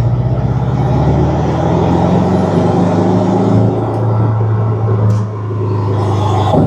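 Porsche 718 Cayman's turbocharged flat-four, fitted with an aftermarket turbo inlet pipe, heard from inside the cabin while driving: a steady low engine drone.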